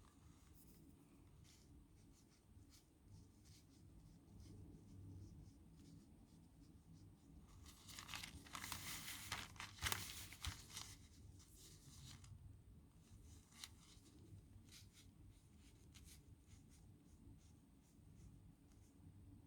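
Faint scratching of a pen nib on paper while writing, with scattered small ticks of the pen. About eight seconds in comes a louder rustle of paper lasting a few seconds.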